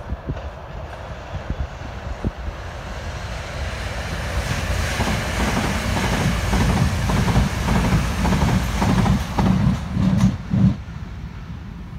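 Electric multiple-unit passenger train running past: the rush of wheels on rail builds, peaks with a quick run of wheel beats over the rail joints about three-quarters of the way through, then falls away.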